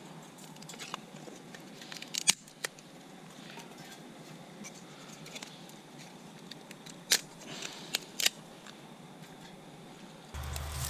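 Dry timber being split and snapped apart by hand into kindling: a few sharp cracks, with a quick run of three near the end. Under them is a faint crackle from a small wood fire burning in a stainless steel twig stove, and a steady low hum cuts in suddenly just before the end.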